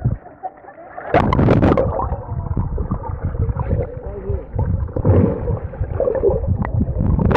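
Muffled underwater churning and gurgling of a dog paddling in a swimming pool, heard from below the surface, with a louder splash about a second in.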